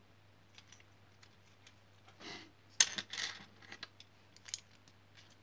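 Plastic Wilko Blox building bricks clicking and rattling as they are handled and pressed together: scattered light clicks, with a louder cluster a little past halfway, the sharpest click about three seconds in.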